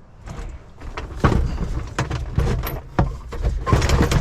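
Scrap metal being handled while an appliance is pulled apart: irregular clanks and knocks, with a louder stretch of scraping and clattering near the end.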